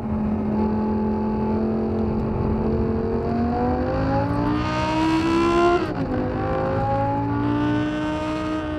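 Tuned first-generation Audi R8's 5.2-litre V10 with a Quicksilver Supersport exhaust, running on track. It holds steady revs for a few seconds, then climbs, drops sharply just before six seconds in a manual gear change, and climbs again.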